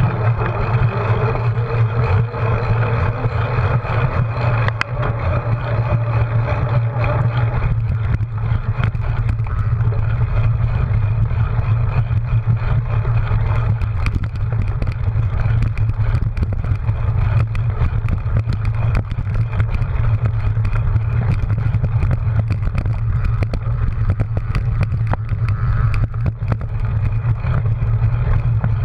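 Cyclocross bike ridden at race pace: a steady low rumble of tyres and wind on the microphone, with constant small rattles and clicks from the bike over the rough ground.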